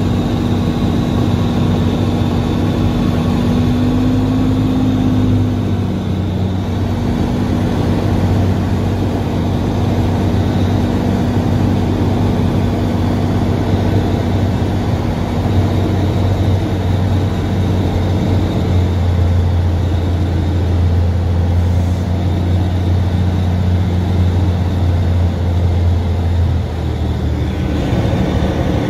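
Cirrus SR22's six-cylinder piston engine and propeller heard from inside the cockpit: a steady drone through the final approach and landing. The low drone grows stronger about two-thirds of the way in, and the sound shifts just before the end.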